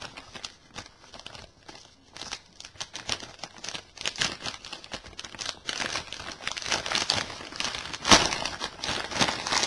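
Packaging being crinkled and torn open by hand: a continuous irregular crackling rustle that grows busier partway through, with a sharper, louder crack about eight seconds in.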